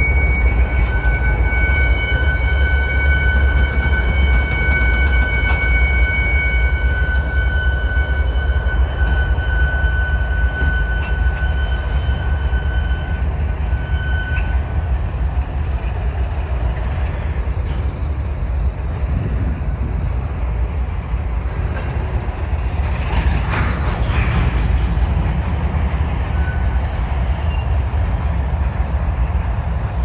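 Freight train of GE ES44AC diesel locomotives and covered hopper cars rolling past with a steady low rumble. High steady wheel squeal rings over it and dies away about halfway through. A short clatter follows about three quarters of the way through.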